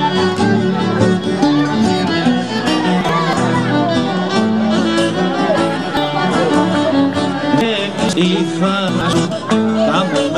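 Live Naxian folk music: a violin plays the melody over laouto accompaniment in an instrumental passage between sung verses, with crowd voices underneath.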